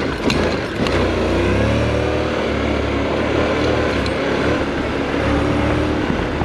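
Motorcycle engine running under way at a steady, moderate speed, its pitch rising and falling a little, over a steady rush of wind and ground noise.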